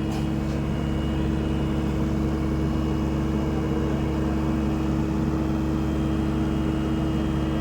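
SANY SY75C Pro excavator's diesel engine running at a steady speed, an even hum with no revving.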